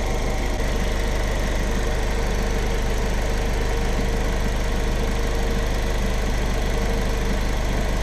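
Freshly rebuilt engine of an Audi TT Mk1 idling steadily as it warms up, an even, unchanging hum.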